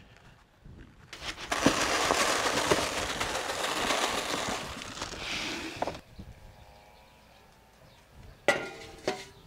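Dry grain feed poured from a plastic bucket into a plastic trough, a dense rattling pour lasting about five seconds. Near the end, a large metal cookware lid clanks and rings briefly.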